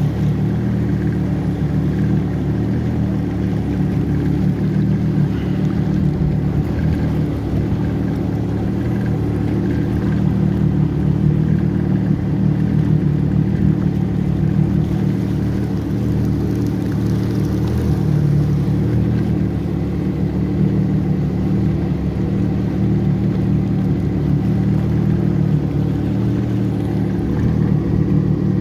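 Jet ski engine running steadily, a constant hum with no change in speed.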